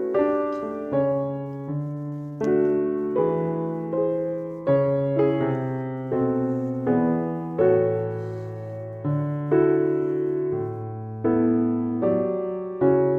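Slow, gentle piano music: chords struck about once every second or less, each left to fade before the next.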